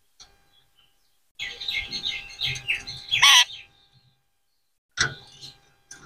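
Rose-ringed parakeet (Indian ringneck) calling: a quick run of short chirps from about a second and a half in, ending in one loud harsh screech, then another short burst of calls near the end.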